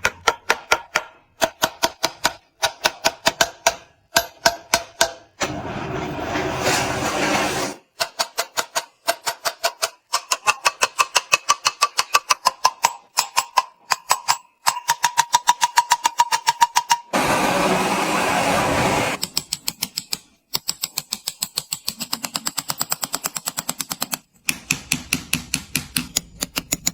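Small hammer striking gold sheet metal in quick, even taps, several a second, each with a short metallic ring. Twice the tapping gives way for a couple of seconds to a steady rasping noise.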